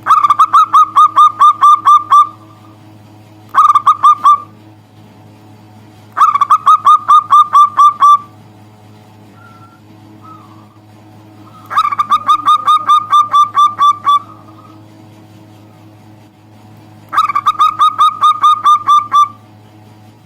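Zebra dove (perkutut) calling in five bursts of rapid, evenly spaced short notes, about five a second. Each burst lasts one to two seconds, with pauses between, over a steady low hum.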